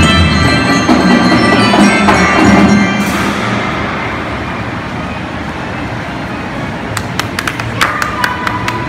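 Children's marching band playing pitched melody over drums; the music stops about three seconds in. A steady hubbub from a large crowd follows, with a few sharp taps and short ringing notes near the end.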